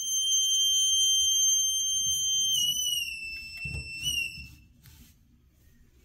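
Toilet fill valve whistling with a steady high tone, which wavers and slides down in pitch as the water supply shut-off valve under the tank is turned closed, then dies away a little after halfway through, with a few handling knocks. The whistle comes from a dirty part inside the fill valve.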